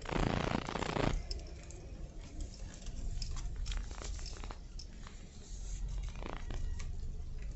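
Handling noise of a phone being moved about: scattered light clicks and rustles over a low hum, after a steady rushing hiss that cuts off suddenly about a second in.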